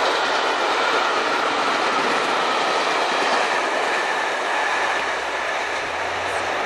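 Passenger coaches of a steam-hauled express train passing close by at speed: a steady rush of wheel-on-rail noise, easing a little about five seconds in as the last coach goes by.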